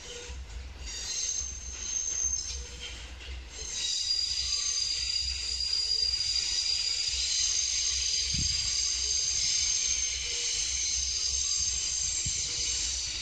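Train wheels squealing on the rails over a low rumble of a slow-moving train. The squeal sets in about four seconds in as several steady high-pitched tones and holds to the end.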